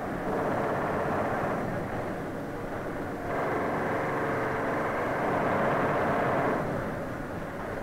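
Hand-held pneumatic tool on tank armour, running in two long bursts with quieter machine-shop noise between. It sounds muffled, with nothing in the high end.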